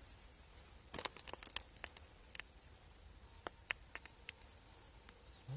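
Faint scattered clicks and crinkly rustles: a quick flurry about a second in, then single ticks now and then.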